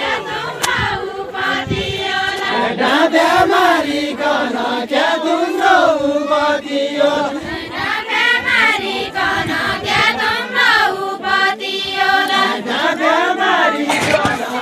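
Group of voices singing a deuda, the Far-Western Nepali folk song sung in turns by dancers linked arm in arm, in long gliding phrases.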